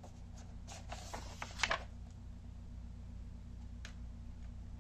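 A paperback picture book's page being turned: a brief rustle and swish of paper about a second in, over a steady low hum.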